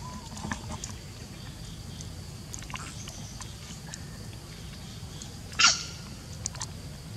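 A single brief, sharp, high-pitched animal squeak about five and a half seconds in, over a steady low rumble and a few faint clicks.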